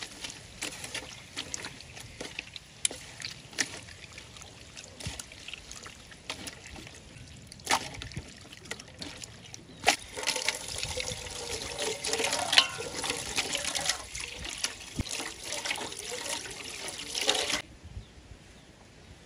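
Wet squelching and slapping of raw chicken intestines being kneaded and scrubbed by hand with salt in a basin, the cleaning that cuts their dirt and slime. The squelching grows busier and louder about ten seconds in, then stops abruptly shortly before the end.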